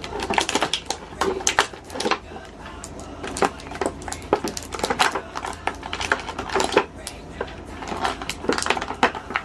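An action figure's cardboard and plastic packaging being handled and opened by hand: a fast, irregular run of clicks, taps and crinkles.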